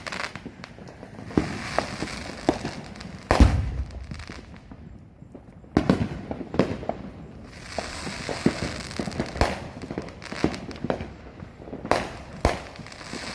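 Consumer fireworks going off around a neighbourhood: a steady run of scattered bangs and crackling pops, with two big booms, one about three and a half seconds in and another near six seconds.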